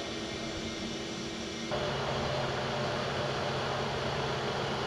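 Steady drone of machinery running in a ship's engine room, with a low hum. About two seconds in the sound shifts abruptly, becoming a little louder with a stronger low hum.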